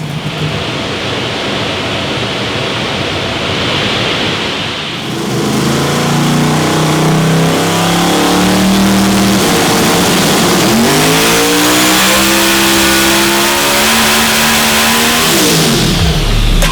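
Twin-turbocharged HEMI V8 in a drag-race Fox-body Mustang running under power on a hub dyno. After a few seconds of steady running, the engine note climbs, dips sharply about ten seconds in, climbs again, then falls away quickly as the throttle is lifted near the end.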